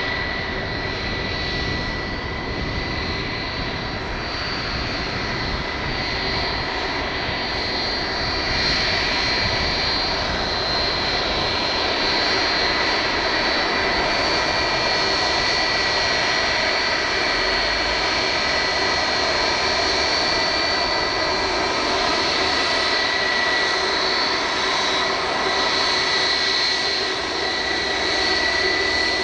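Boeing 757's twin turbofan engines at taxi idle, a steady jet whine with high held tones over a broad rushing noise.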